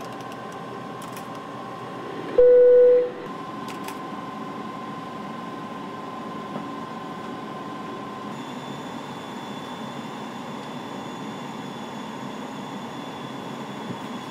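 Steady airliner cockpit background hum with a faint steady whine. About two and a half seconds in, a single loud electronic tone of one steady pitch sounds for under a second: a cockpit alert chime.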